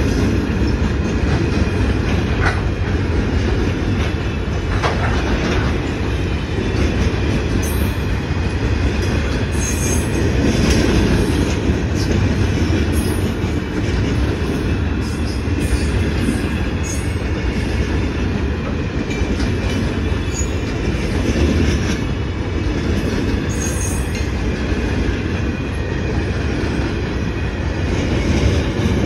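Grain hopper wagons of a freight train rolling past close by: a steady rumble of steel wheels on rail, with brief high wheel squeals several times.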